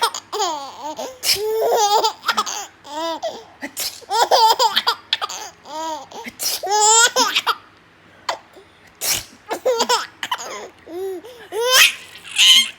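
Baby laughing in repeated bursts of giggles and belly laughs, set off by sneezes, a few sharp sneezes falling between the laughs.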